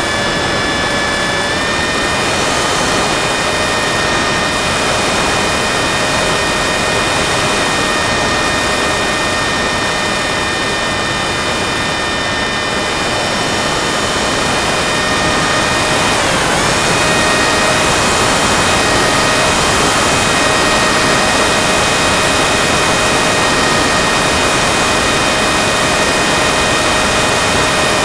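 FPV model aircraft's motor and propeller running steadily in flight, heard through the onboard camera: a steady whine over rushing air. The whine steps up in pitch a couple of seconds in, dips briefly about halfway through, then returns a little louder, as the throttle is eased off and opened again.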